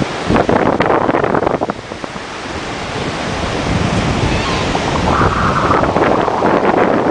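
Wind buffeting the microphone over the steady wash of ocean surf, gusty in the first couple of seconds, then a steadier rush that grows louder.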